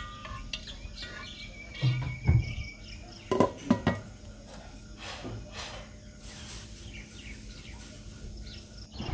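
A glass pot lid knocks and clinks against a metal pot as it is set down, with a dull bump about two seconds in and a few sharper clinks near the middle. Small birds chirp faintly in the background.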